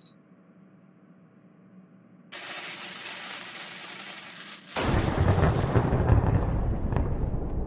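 Near silence, then a steady hiss from about two seconds in, and from near five seconds a loud, noisy rumble that keeps going.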